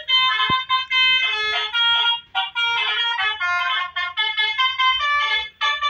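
Telolet basuri multi-tone musical horn playing a tune: a run of short horn notes stepping up and down in pitch, with two brief pauses.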